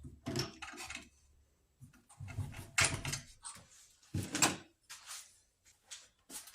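Scattered short knocks and rattles of hard objects being handled, as the drill press is set up for the next bit; the drill press motor is not running.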